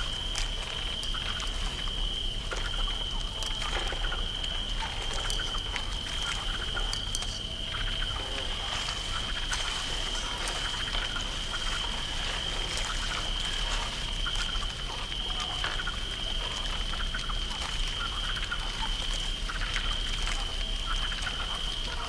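Night swamp ambience: a steady high cricket trill throughout, with scattered short animal calls and small clicks and drips of water over it.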